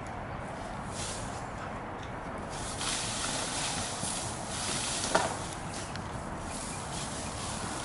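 Siberian husky digging in loose garden soil with its front paws: uneven bursts of dirt being scratched and scraped, with a brief sharp sound about five seconds in.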